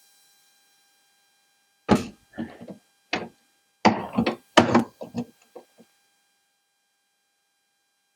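Handling clatter from taking apart a cassette deck's transport: a run of about eight sharp knocks and clicks of parts and tools against the mechanism, starting about two seconds in and stopping about two seconds before the end.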